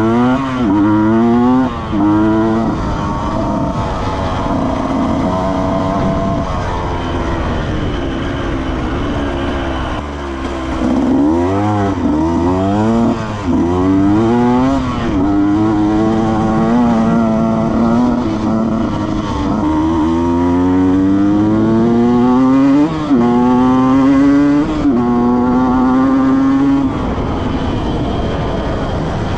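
Husqvarna 125 two-stroke dirt bike engine revving hard, its pitch climbing again and again and dropping back as it accelerates and shifts up through the gears, with a brief easing off about ten seconds in.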